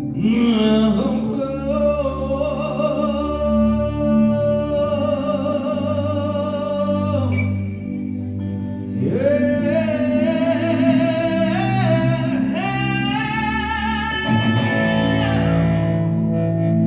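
A live band playing with a singer's voice over guitar, two sung phrases each held for several seconds with a short break between them, during a soundcheck.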